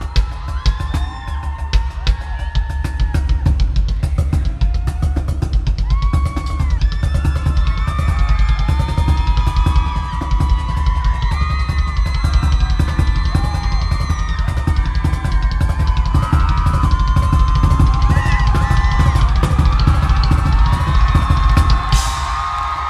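Fast drum solo on a kit of recycled plastic buckets and barrels with cymbals, struck with sticks: a dense run of rapid hits with deep low thumps and cymbal crashes, breaking off shortly before the end.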